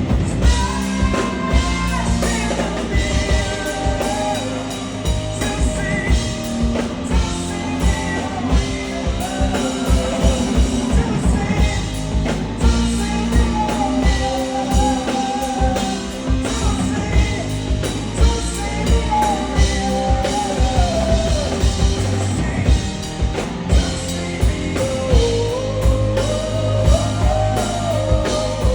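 Live rock band playing: a singer over a drum kit with a steady beat, electric guitar and bass.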